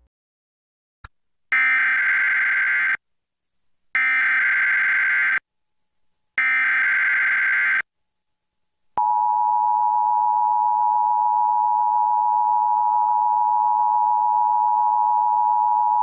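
Emergency Alert System transmission: three identical bursts of warbling digital SAME header data tones, each about a second and a half long, then about nine seconds in the steady two-tone EAS attention signal (853 and 960 Hz together) begins and holds.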